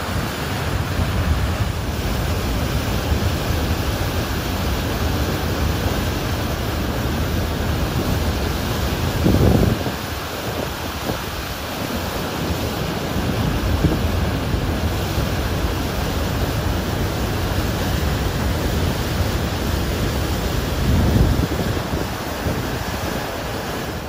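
A large volume of water rushing over a spillway into a hydroelectric plant's bypass channel: a steady, loud noise of churning white water. The water is being diverted around the plant after a machine failure. Wind buffets the microphone briefly about ten seconds in and again near the end.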